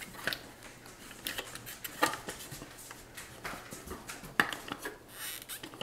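A KitchenAid 3.5-cup food chopper being handled and taken apart: scattered light clicks and knocks of its parts, about one a second.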